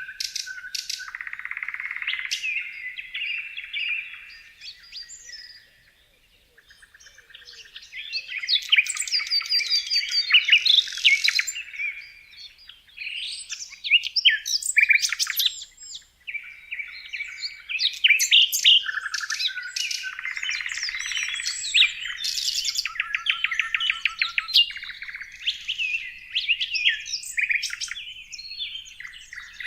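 Several birds singing and chirping, a mix of quick chirps, rapid trills and whistled notes, with a short lull about six seconds in.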